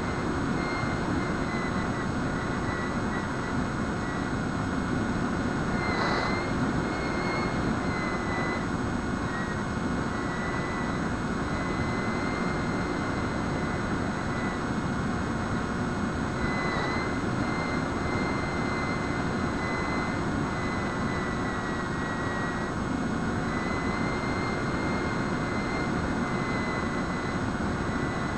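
Electric motor and propeller of a Bixler RC foam plane in flight, a thin steady whine over rushing air noise. The whine's pitch wavers a little, with brief chirps about 6 and 17 seconds in.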